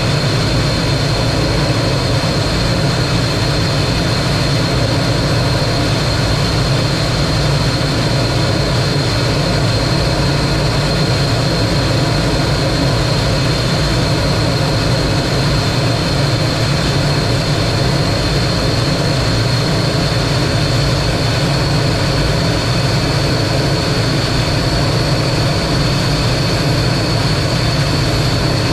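T-33 jet trainer's engine running steadily: a constant rumble with a high, steady whine on top.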